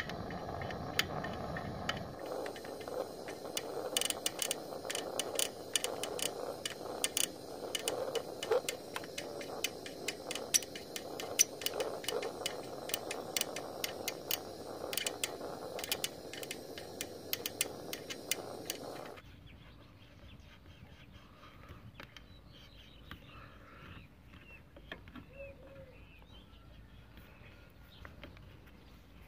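Hand tools working on a scooter engine: irregular sharp metallic clicks and scrapes of a wrench and pliers on a nut and stud. After about 19 seconds the sound drops to a quieter outdoor background with a few faint bird chirps.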